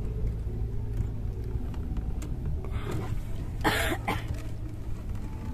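A man coughing, a short harsh cough a little past the middle with a louder one just after, over a steady low rumble.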